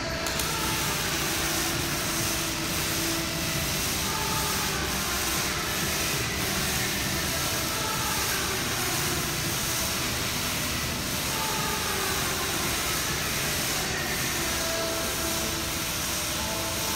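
Electric arc welding on the steel shell of a large tank: the arc gives a steady hiss that begins abruptly.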